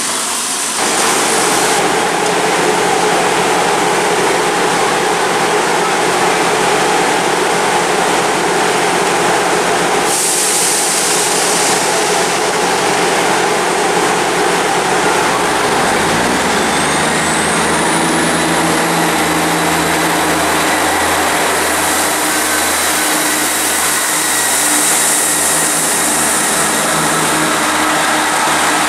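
Diesel train engines running loud and steady at a station platform. About sixteen seconds in, a new, lower engine note comes in along with a rising high whine.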